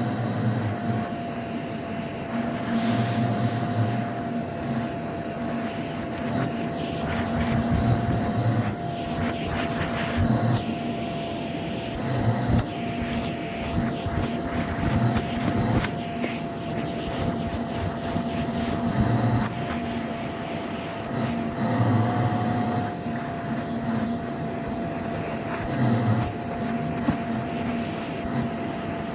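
Vacuum cleaner running over a shag carpet, its motor giving a steady whine. A low rumble swells and fades every few seconds as it is worked across the pile.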